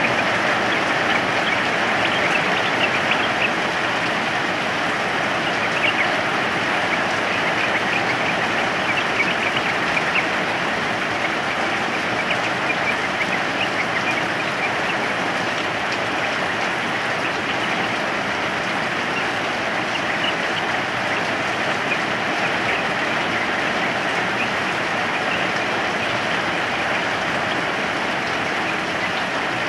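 Steady rain falling, an even hiss without a break. Faint short high notes, likely from a yellow-vented bulbul, are scattered through it.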